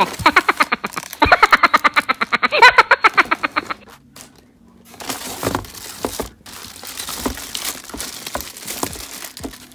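A rapid burst of pulsing laughter, like a comic laugh effect, for about four seconds, cutting off sharply. Then plastic bag packaging crinkling and rustling, with light clicks and knocks, as items are handled in a cardboard box.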